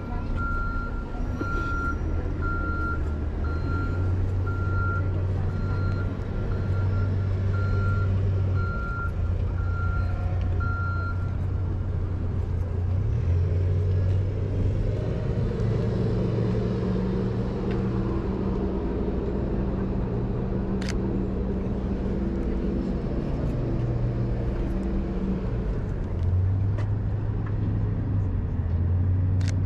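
A truck's reversing alarm beeping at an even pace, which stops about eleven seconds in. Under it a heavy vehicle engine runs with a low rumble that shifts in pitch, in city street noise.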